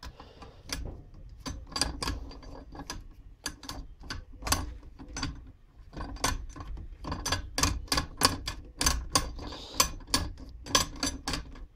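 Socket ratchet wrench clicking in short back-and-forth runs as it tightens the 14 mm bolts holding the valve spring compressor's rail, the clicks coming closer together in the second half.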